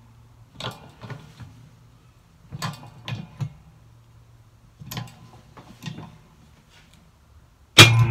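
6-tonne shop press being worked in three bursts of clicking and creaking, about two seconds apart, as it pushes the old needle bearing out of an Eaton M90 supercharger housing. Near the end a sudden loud bang, followed by a ringing tone, as the bearing breaks free.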